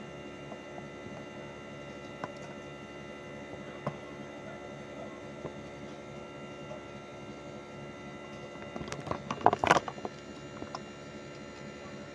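Outdoor unit of a 1-ton Hitachi split air conditioner running with a steady hum. A few single clicks sound early on, and a short flurry of knocks and rattles comes about nine seconds in.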